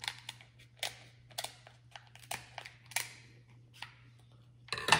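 Shellfish shells cracking and clicking as they are broken and picked apart by hand to get the meat out: irregular sharp cracks, with a louder burst of noise near the end.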